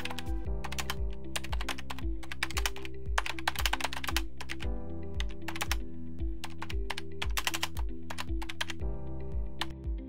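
Fast typing on a computer keyboard: a quick, uneven run of key clicks that thins out and stops near the end. Background music with a steady bass beat plays under it.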